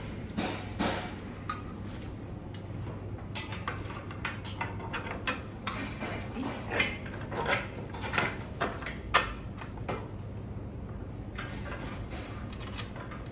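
Irregular clicks and knocks of Adirondack chair parts and screws being handled and fitted during assembly, the sharpest knock about nine seconds in, over a low steady hum.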